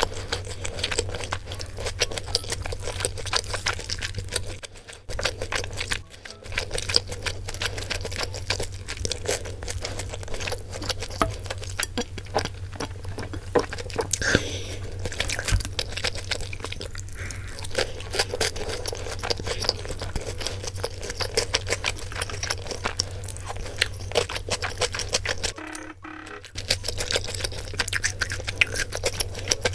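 Close-miked chewing of crunchy food: a dense run of crackling crunches, broken by a couple of brief pauses.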